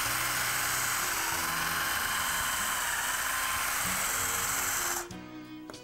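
Electric drill running steadily with a long bit boring into a foam mannikin's nostril passage, stopping about five seconds in. Background music plays underneath.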